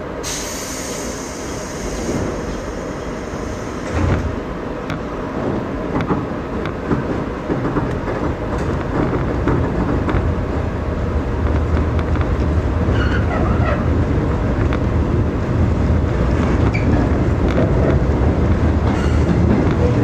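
Train heard from on board as it pulls away from a station and picks up speed: running noise growing gradually louder, with scattered wheel clicks over the rail joints and a low steady hum building in the second half. A brief hiss sounds near the start.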